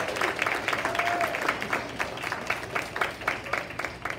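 Audience applauding, many hands clapping irregularly, thinning out near the end.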